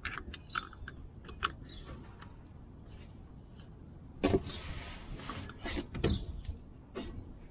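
A wrench being worked on a fitting under a car: scattered metallic clicks and scraping, with a louder rasping stretch about four seconds in.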